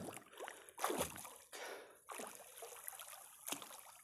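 Faint, soft water splashes and sloshing from a person swimming away through lake water, in a few gentle, uneven surges.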